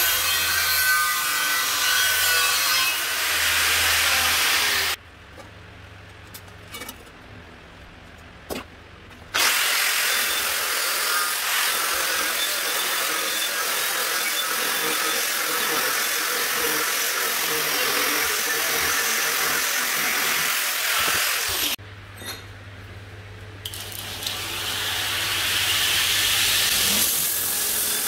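Angle grinder with an abrasive disc cutting the steel legs of an anvil stand to length, a steady grinding noise that stops about five seconds in. After a few quieter seconds with small clicks, an angle grinder grinds steel plate for about twelve seconds. Near the end a belt grinder grinds a steel bar, its noise building up.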